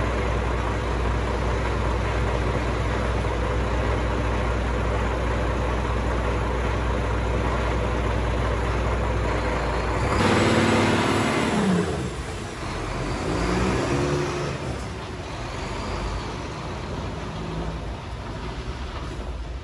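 Renault Lander 460 truck's diesel engine idling steadily, then about halfway a burst of air hiss as the brakes release and the engine pulls away, its pitch rising through two gears before the sound fades as the truck drives off.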